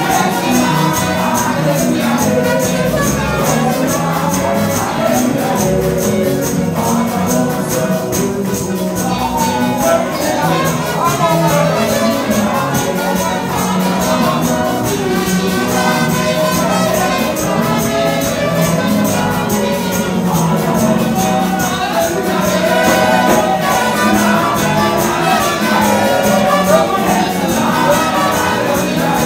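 Live church praise music: voices singing through microphones over instrumental backing with a steady percussion beat.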